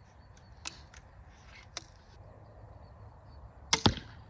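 Man Kung Alligator 80 lb recurve pistol crossbow shot near the end: a sharp crack of the string on release and, a split second later, the bolt striking the foam target. Before it, two light clicks as the crossbow is readied.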